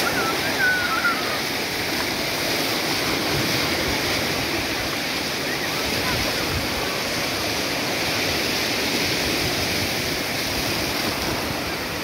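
Shallow sea surf washing in over a sandy beach, a steady rush of breaking water and foam. A brief high voice calls out at the very start.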